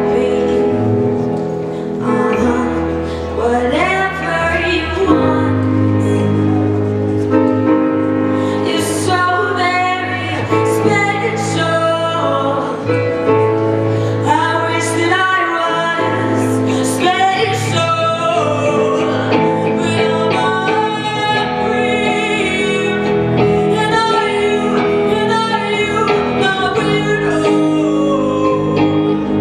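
A young woman singing into a microphone, backed by a band playing electric guitar and bass guitar.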